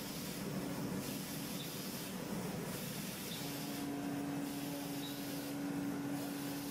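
CNC machining centre cold-forming M8 threads in an aluminium block with a thread-forming tool: a steady hiss of coolant spray over the running machine, swelling at intervals. A steady hum joins about three and a half seconds in.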